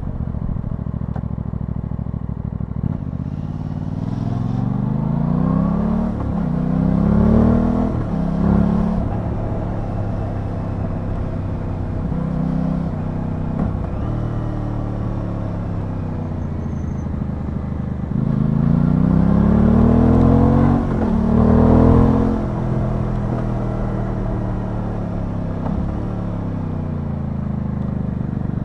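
Aprilia Tuono 660's parallel-twin engine, heard from the rider's seat, running at a steady road speed. It then twice pulls hard up through the gears, about four and eighteen seconds in, its pitch climbing and dropping back at each upshift.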